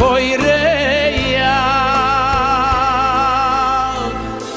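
A male singer with a live band: after a few quick melodic turns he holds one long note with a wide vibrato over a sustained chord and bass. The held chord and the bass die away near the end.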